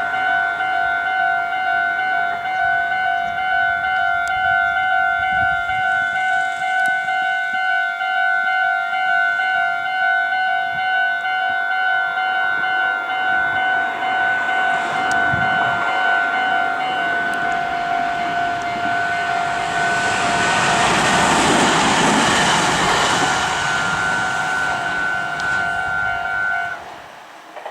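Japanese level crossing's electronic warning bells ringing in a steady pulsing repeat. A Meitetsu train runs through with a rising rush of wheel noise from about twenty seconds in, and the bells cut off about a second before the end.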